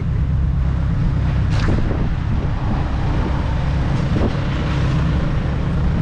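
Car on the move: a steady low rumble of engine and road noise, with some wind noise on the microphone.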